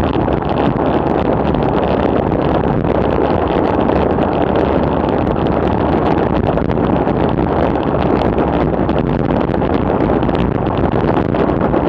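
Steady rush of wind over the microphone of a bicycle-mounted camera on a fast descent at about 55–60 km/h.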